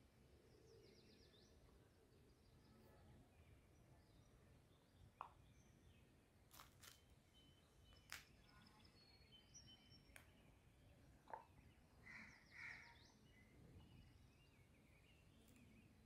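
Near silence: faint room tone with a few soft clicks and taps from handling a silicone candle mould, and faint bird chirps in the background near the start and again near the end.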